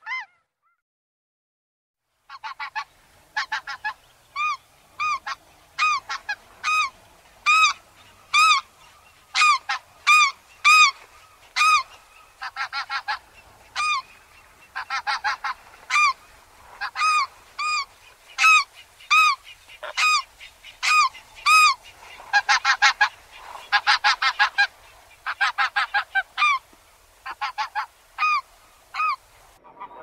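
Greater white-fronted goose calling: a long series of high, yelping calls, singly or in quick pairs and triplets, with a denser run of overlapping calls a little past two-thirds through. It opens on the last of a snow goose's calls, followed by about two seconds of silence before the white-fronted goose begins.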